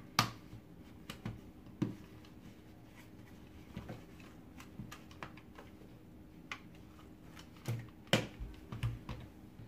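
Sharp plastic clicks and knocks of a vacuum cleaner floor nozzle's front cover being fitted into place by hand. The loudest clicks come just after the start and about eight seconds in.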